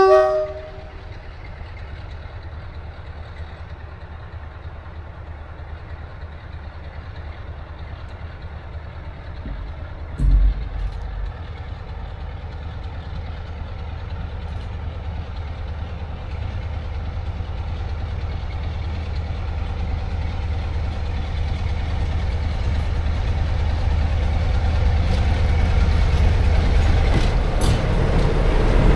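Diesel train approaching: the end of a two-note horn blast right at the start, then a steady low engine rumble growing gradually louder as it nears, with a brief low thump about ten seconds in.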